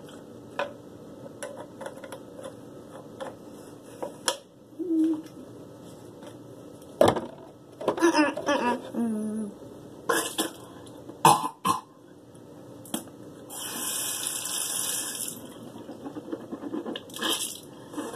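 A child with a mouthful of stinging mouthwash: closed-mouth groans, splutters and clicks while swishing, then spitting over the sink, with a steady water-like hiss for about two seconds near the end.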